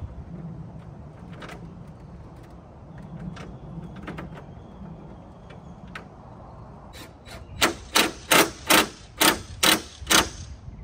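A few scattered light clicks, then near the end a quick run of about eight sharp knocks, roughly three a second.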